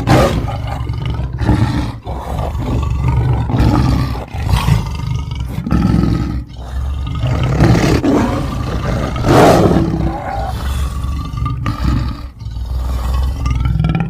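Big-cat-style monster roars and growls as sound effects: a continuous low growl broken by several loud roars, the loudest about nine seconds in.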